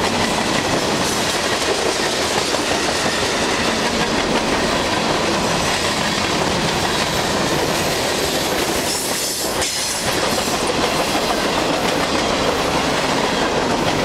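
Freight cars of a mixed freight train (covered hoppers, tank cars and boxcars) rolling past at speed close by, with a steady clatter of wheels on rail that eases slightly for a moment about nine and a half seconds in.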